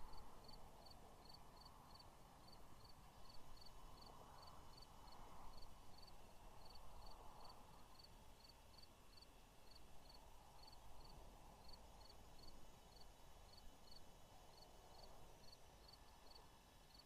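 Near silence: faint outdoor ambience, a soft rush that swells and fades, with a faint high chirp repeating evenly about three times a second.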